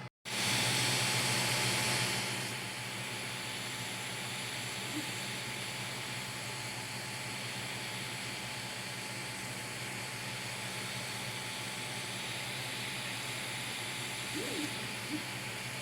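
Creality CR-M4 3D printer running: a steady whir of its fans and motors with a constant low hum, louder for the first two seconds.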